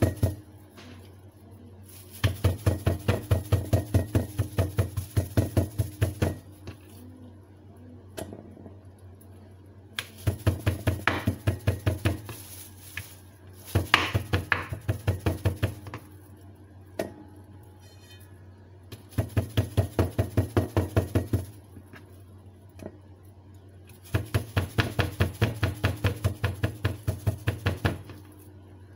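Kitchen knife chopping rapidly through raw pork onto a wooden cutting board, several quick knocks a second, in five bursts of a few seconds separated by short pauses.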